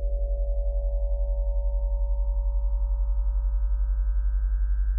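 Electronically generated sine tones: a loud low hum near 43 Hz pulsing rapidly and evenly, under a cluster of fainter higher tones that slowly rise in pitch.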